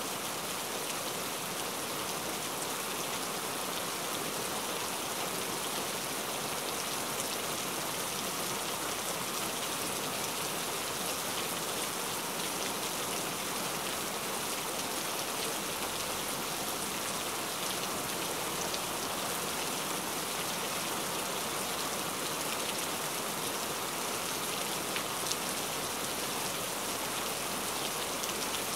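Steady rain falling: an even, unbroken hiss with scattered drop ticks, a few slightly sharper ones near the end.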